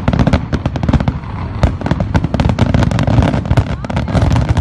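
Aerial fireworks shells bursting in a dense, overlapping barrage: many sharp bangs and crackles a second over a deep rumbling boom.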